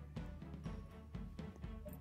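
Quiet background music with a steady low beat.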